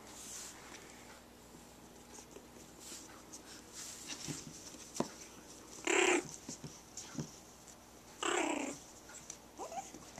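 Dogs playing on a wooden floor: two short, rough growl-barks about six and eight seconds in and a brief rising whine near the end, with small clicks and knocks of paws and claws on the boards.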